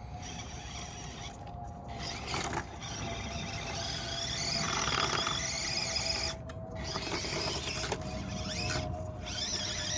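Axial SCX24 Jeep Gladiator 1/24-scale RC crawler driving, its small electric motor and drivetrain whining in pitch that rises and falls with the throttle.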